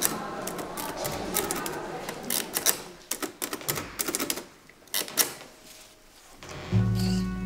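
Clacking of mechanical office machines, typewriters and adding machines, busy at first and thinning to scattered clicks. Music with low held notes comes in near the end.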